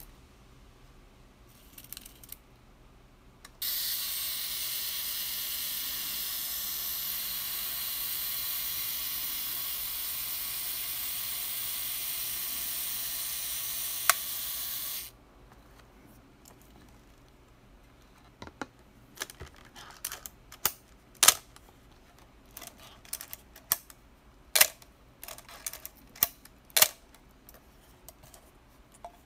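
A steady hiss lasting about eleven seconds, with one sharp click near its end. After a short pause comes a run of irregular metallic clicks and knocks as a Canon FTb film SLR and its zoom lens are handled and the lens is turned on its mount.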